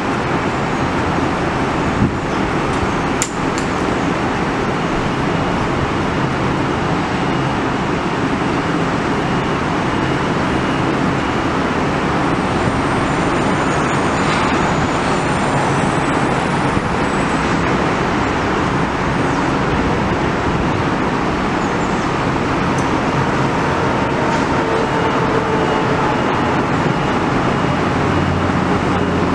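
Metro-North M8 electric train standing at the platform, its onboard equipment running with a steady, even noise. Two sharp clicks come a little after two and three seconds in.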